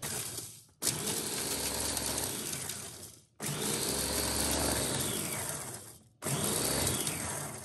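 Electric food chopper with a stainless steel bowl chopping walnuts. It runs in three pulses of two to three seconds each, its motor whine rising as it spins up and falling as each pulse stops.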